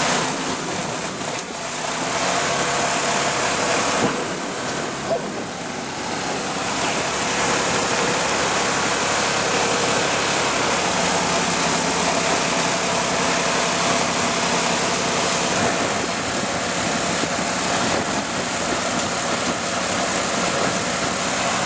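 Mud boat's ProDrive mud motor running steadily under way.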